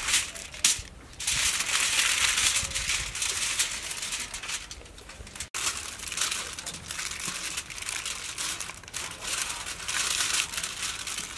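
Aluminium foil crinkling and rustling as it is folded and rolled tightly around a parcel by hand, in irregular bursts.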